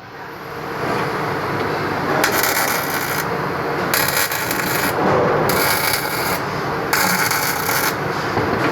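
CO2 (MIG/MAG) welding arc crackling and sizzling steadily, with four roughly one-second spells of brighter hiss about every second and a half.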